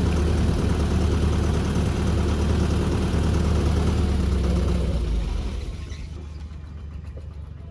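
Heavy construction machine's diesel engine running steadily with a deep drone. It becomes much quieter about five and a half seconds in.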